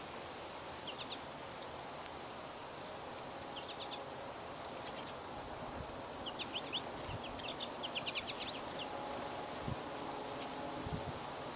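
Small finches, pine siskins and American goldfinches, giving short high twittering calls in quick bursts, busiest a little past the middle, over a steady background hiss.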